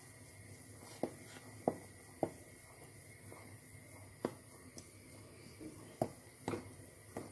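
Wooden spoon stirring thick blended soup in a stainless steel pot, with a series of light, irregular knocks as the spoon strikes the pot's side and bottom.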